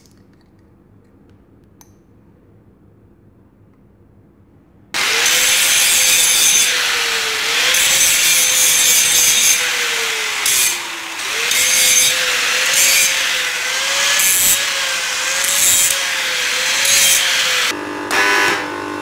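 An angle grinder grinding a steel piece held in a vise, starting abruptly about five seconds in after a near-quiet stretch. Its motor whine sags repeatedly as the disc is pressed into the metal and picks up again as the pressure eases.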